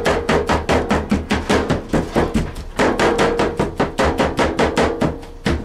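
Rapid, rhythmic chopping with meat cleavers on a cutting board, several strokes a second, with music playing underneath.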